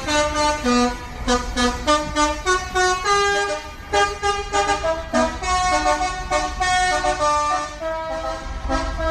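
Bus telolet horn, a Basuri multi-tone air horn, playing a quick melody of short notes that step up and down in pitch, over a low rumble.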